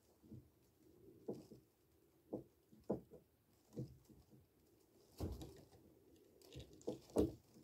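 Scattered light taps and knocks of hands handling a bathtub drain fitting against the tub, irregularly spaced, with two heavier thumps, one about five seconds in and one near the end.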